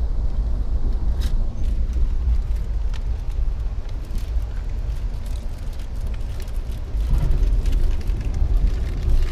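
Passenger train running along the track: a steady low rumble with faint clicks and rattles, growing a little louder about seven seconds in.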